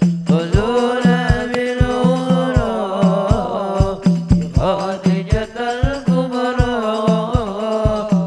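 Sholawat, a devotional song in praise of the Prophet: a voice sings a winding, ornamented melody over regular low drum beats, about two to three a second.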